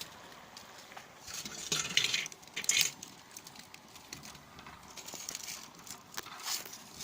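Metal utensil clattering and scraping against a frying pan while freshly fried murukku are handled, with loud noisy clatter about one and a half to three seconds in and lighter clicks later.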